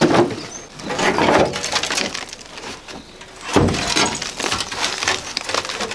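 Clattering and knocking of old car parts and debris being shifted about in the back of a Land Rover, with a heavy knock about three and a half seconds in followed by rattling.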